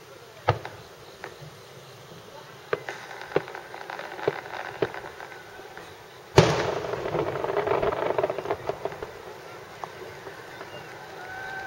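Fireworks heard from a distance: a few scattered sharp pops, then, about six seconds in, the single loud boom of a large 10-inch chrysanthemum aerial shell bursting, rolling on with echoes and crackle that fade over a couple of seconds.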